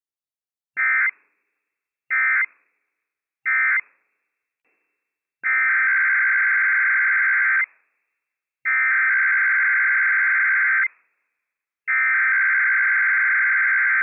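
Emergency Alert System SAME data bursts, the buzzy two-tone digital code sent over NOAA Weather Radio. Three short end-of-message bursts come about a second and a half apart, closing one Required Weekly Test. After a pause, three long header bursts of about two seconds each open the next test.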